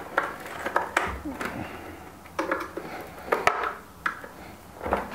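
A string of sharp, irregular plastic clicks and knocks as a flathead screwdriver pries the Baratza Encore grinder's plastic casing loose at its snap clips, with the grinder body being turned and handled on the work surface.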